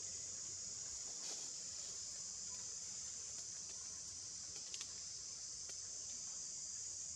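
Steady, high-pitched drone of an insect chorus from the surrounding forest, with a couple of faint clicks about a second in and near the fifth second.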